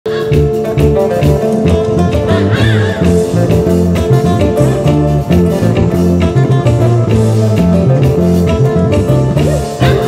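Live band music played loud through a stage PA: guitars over a steady, rhythmic bass line.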